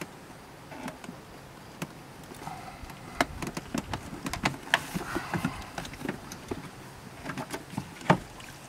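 Plastic windshield washer fluid reservoir being worked up and out of the engine bay: irregular clicks, knocks and scraping of the plastic bottle against the bodywork and wiring, with a sharper knock near the end.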